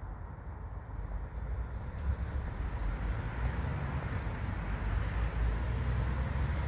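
Low, steady rumble of vehicle traffic that swells over the first couple of seconds and then holds.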